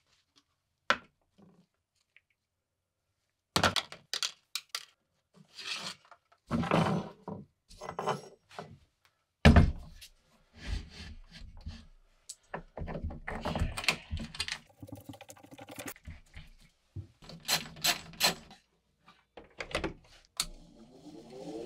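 Handling noises on a wooden workbench: a string of separate knocks, clunks and clicks of metal tools and parts being picked up and set down, with glove rustling between them, while a bench grinder is being readied.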